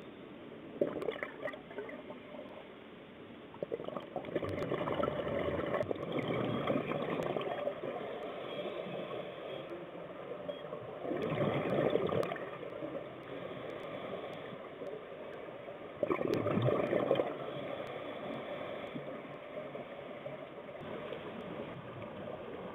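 Water bubbling and gurgling, swelling into louder bursts every five seconds or so, like a scuba diver's exhaled bubbles from the regulator heard underwater.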